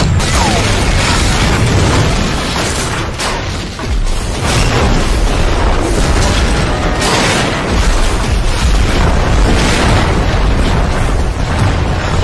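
Explosion sound effects of a missile strike: several heavy blasts a few seconds apart over a continuous low rumble.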